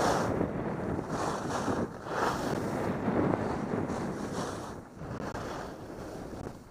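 Wind rushing over a helmet camera's microphone and skis hissing over packed snow on a downhill run. The rush swells and eases roughly once a second with the skier's turns, and grows quieter in the last couple of seconds.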